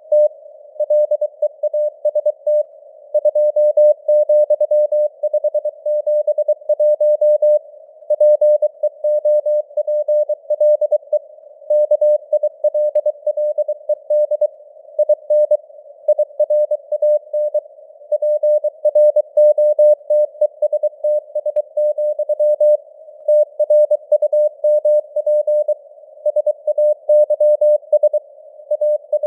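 Morse code (CW) sent at 23 words per minute: a single steady mid-pitched beep keyed on and off in dots and dashes, inside a narrow band of simulated radio static.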